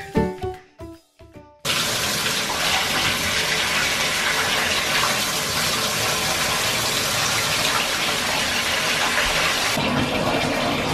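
Intro music with short keyboard-like notes ends about a second and a half in. Then water runs steadily from a mixer tap into a bathtub that is filling.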